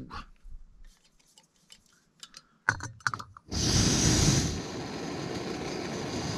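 A few light clicks and knocks of handling, then about three and a half seconds in a sudden rushing noise starts. It is loudest for about a second, then settles into a steady rush.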